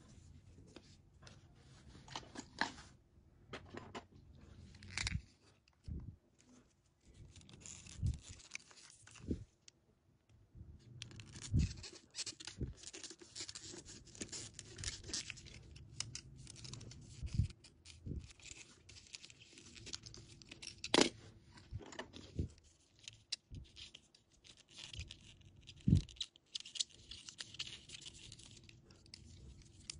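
Snap-off utility knife blade shaving and cutting a wine cork: irregular scraping and crackling as the blade cuts through the cork, with scattered small clicks and knocks.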